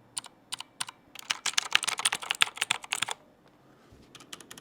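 Typing on a mechanical keyboard with clicky blue switches: a few separate key clicks, then about two seconds of fast typing with rapid clicks, a short pause, and more keystrokes near the end.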